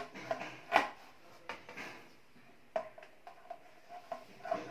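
Wooden picture frame being handled against a wall as it is straightened on its hanging point: a few sharp taps and knocks, the loudest a little under a second in, with lighter ticks later over a faint steady hum.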